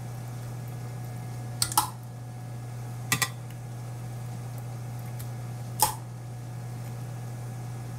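A spoon clinking three times against a baking dish as tomato sauce is spread over breaded chicken cutlets, over a steady low hum.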